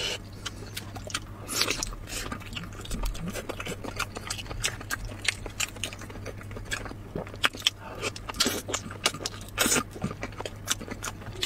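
Close-up eating sounds: wet biting and chewing, with many short, irregular mouth clicks and smacks.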